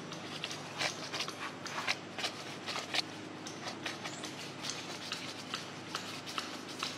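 Irregular short clicks and rustles, several a second, loudest and most frequent in the first three seconds.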